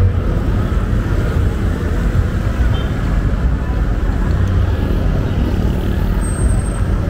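Busy road traffic: engines of jeepneys and cars running and passing close by, a steady low rumble.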